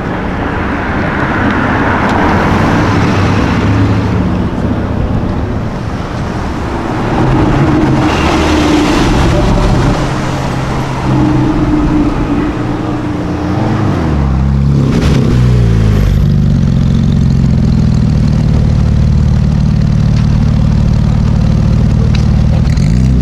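High-performance car engine running in street traffic. About fourteen seconds in the pitch dips and climbs again as the engine is revved, then it settles into a steady deep drone.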